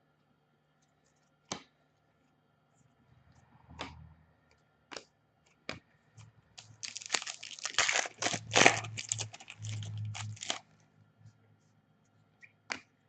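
A trading card pack wrapper torn open and crinkled, a dense crackling rip lasting about four seconds past the middle, after a few single sharp clicks of handling.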